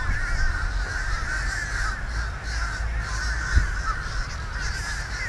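Many birds calling at once, a continuous overlapping chatter of wavering, squeaky calls, over a steady low rumble. A single low thump comes about two-thirds of the way through.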